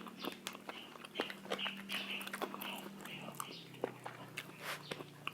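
Someone chewing and biting into spicy fried chicken close to the microphone: irregular small mouth clicks and smacks throughout. A faint steady hum sits underneath.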